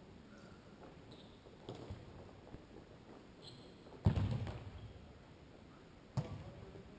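Futsal ball being kicked on an indoor court: two sharp impacts, a loud one about four seconds in and a lighter one about two seconds later, each echoing around the large hall, with fainter thumps of play earlier.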